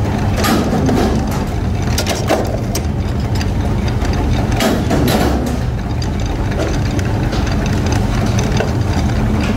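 Mechanical forging press running with a steady low drone while red-hot steel blanks are pressed in the die, with several sharp metallic clanks, some in quick pairs around two and five seconds in.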